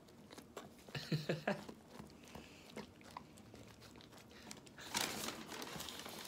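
A dog biting and chewing pieces of hamburger in quick wet chomps, the loudest run about a second in.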